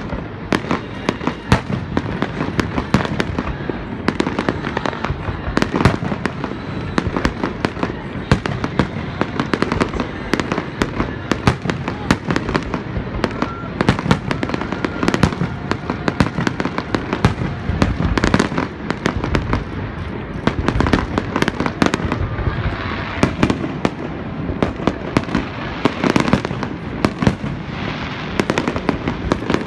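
Aerial fireworks display: a dense, continuous barrage of bangs and sharp crackling bursts over a steady low rumble.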